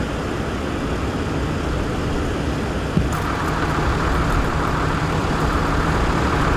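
Steady traffic and vehicle engine noise, with a small knock about three seconds in, after which a higher hum is stronger.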